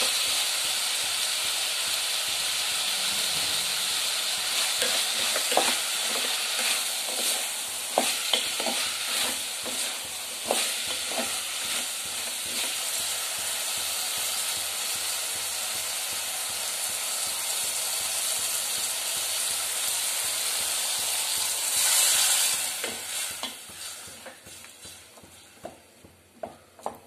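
Chopped vegetables sizzling in hot oil in an aluminium pressure cooker while a wooden spatula stirs and scrapes them, with frequent light knocks against the pan. Near the end a louder hiss flares up, then the sizzling dies away, leaving only occasional clicks.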